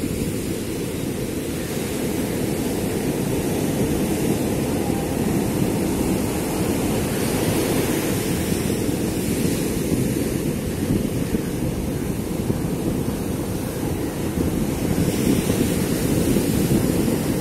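Steady wind rumbling on the microphone, with sea surf washing faintly behind it.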